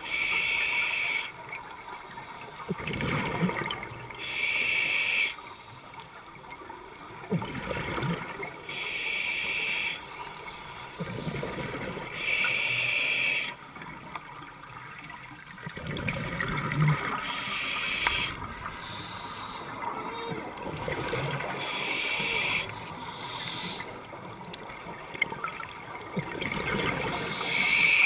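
Scuba diver breathing through an open-circuit regulator underwater: a hissing inhalation through the demand valve about every four seconds, each followed by a bubbling rush of exhaled air, about seven breaths in all.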